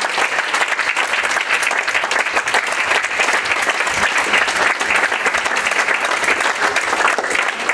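Audience applauding steadily: dense, continuous clapping at the end of a dance performance.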